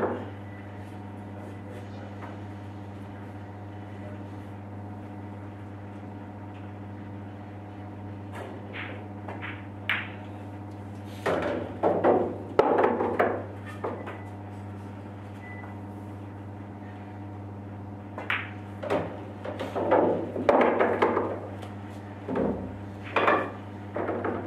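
Pool balls clacking against each other and knocking on wood as they are gathered and set into a triangle rack, in clusters of sharp knocks over a steady hum.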